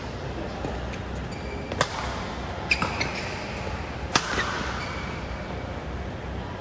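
Badminton rackets striking a shuttlecock during a rally: several sharp hits, the loudest about two seconds in and just after four seconds, with a quick pair of knocks near three seconds.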